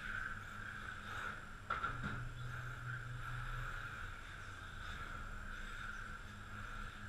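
Radio-controlled touring cars running laps on an indoor track, heard as a steady whine. About two seconds in, one sharp sound falls quickly in pitch, followed by a low hum for about two seconds.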